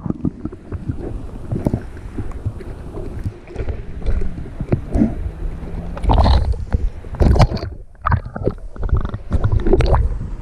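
Water sloshing and gurgling around a camera dipped at and under the water's surface, with irregular splashes and muffled knocks.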